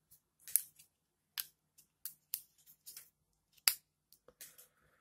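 Small sharp clicks and taps from the metal and plastic parts of a Shimano Zee bicycle shifter being handled and fitted together by hand: about ten irregular clicks, the loudest about three-quarters of the way through.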